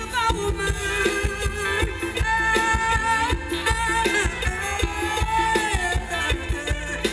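Live mor lam band music: a woman singing long held notes over keyboard and a steady, quick drum beat.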